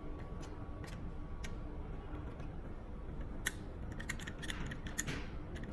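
Scattered small clicks and taps of wires being worked loose from the screw terminals of a wall light switch.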